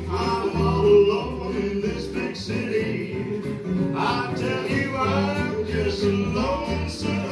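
Recorded dance music playing: a singing voice over instrumental backing with a steady, repeating low bass.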